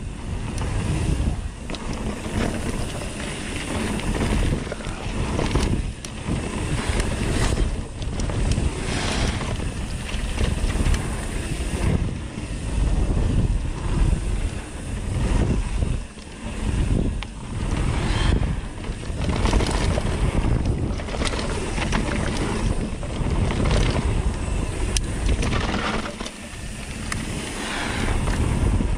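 Wind buffeting the microphone of a riding mountain biker's camera, mixed with tyre noise on the dirt trail and frequent short knocks and rattles as the bike goes over bumps.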